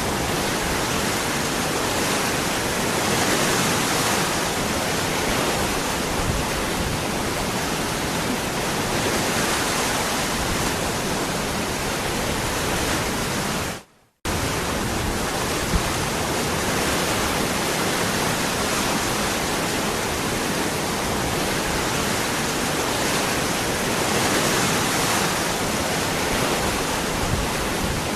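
Waterfall rushing steadily, an even full-range roar of falling water. About halfway through the sound cuts out to near silence for roughly half a second, then resumes unchanged.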